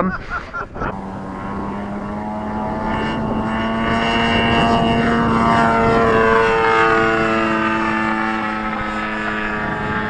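Engine and propeller of a radio-controlled tow plane droning steadily as it tows a glider up, growing louder toward the middle and then easing off, its pitch sagging slightly.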